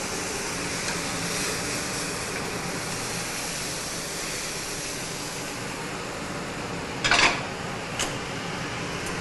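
Chicken breast sizzling in a hot grill pan, a steady hiss. A single loud knock comes about seven seconds in, and a smaller click about a second later.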